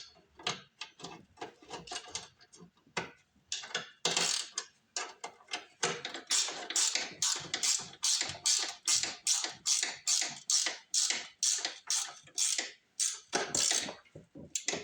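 Hand ratchet wrench driving a bolt, in short back-and-forth clicking strokes: a few scattered at first, then a steady run of about three strokes a second before it stops near the end.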